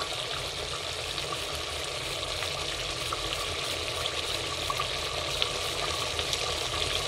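Tomato sauce simmering in a stainless steel pot: a steady bubbling hiss with scattered faint pops.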